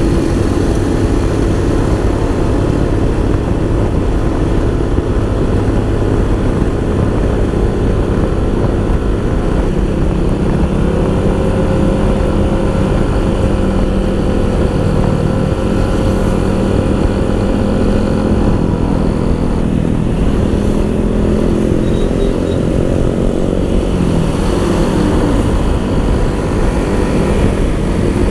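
Motor scooter engine running steadily at cruising speed, its pitch drifting slightly as the speed changes, under heavy wind rush on the microphone.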